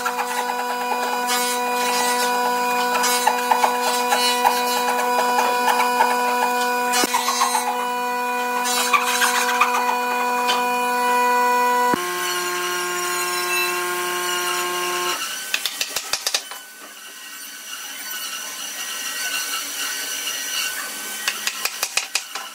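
Hand sawing into a pine board with a narrow saw blade, rough back-and-forth strokes over a steady hum. In the second half, quick runs of wooden mallet knocks drive glued pine uprights into their joints.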